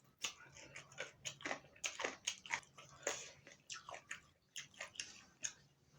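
Close-miked eating: irregular chewing and biting, a quick run of small mouth clicks and smacks.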